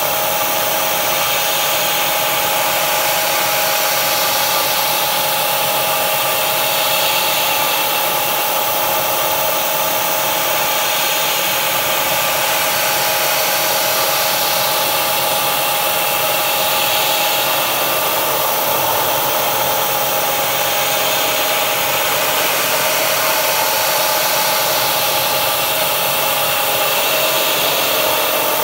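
Steady hiss of a compressed-air mist coolant sprayer, with a steady whine beneath it from a CNC machine running a carbide end mill through the part.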